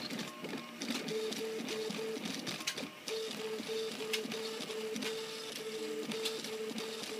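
RepRap Mendel 3D printer's stepper motors sounding as the print head runs back and forth, making a tone in short, evenly repeated dashes over a low hum. Sharp knocks come every second or two, a wooden knife chopping.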